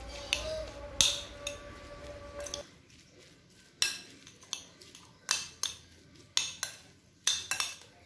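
Metal spoon stirring mashed tofu with chopped spring onion and carrot in a bowl, clinking and scraping against the bowl's sides in irregular strokes, about one or two a second.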